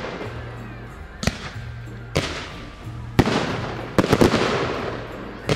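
Aerial fireworks shells bursting overhead: five sharp bangs about a second apart, each followed by a fading crackle as the stars burn out.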